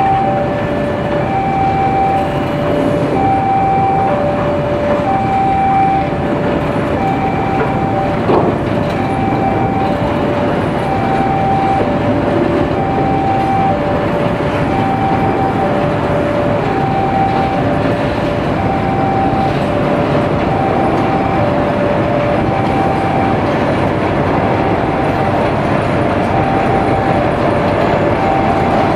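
Electronic railway level-crossing alarm sounding two alternating tones, a higher and a lower, each about half a second, over the continuous rumble of a train of fuel tank wagons rolling slowly past. A single brief knock comes about eight seconds in.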